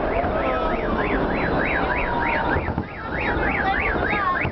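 An electronic alarm tone warbling, sweeping rapidly up and down about three to four times a second with a short break near the middle, over a dense crowd-and-fireworks din.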